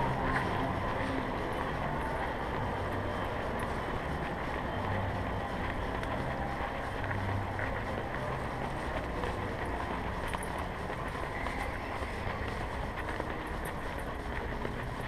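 Steady rumbling motion noise from a camera worn by a walking dog, with a few faint clicks.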